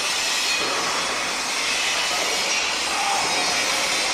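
Construction-site noise: a steady, dense wash of machinery sound at an even level, with no single knock or strike standing out.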